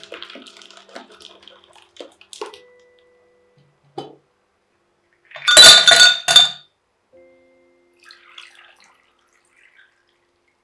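Ice cubes tipped into a tall drinking glass, clinking and rattling against the glass and each other for about a second in the middle. Before it, faint clinks of a glass jar being handled, and near the end a faint splash of liquid poured over the ice.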